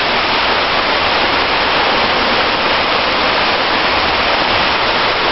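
Heavy rain pouring down, a loud steady hiss.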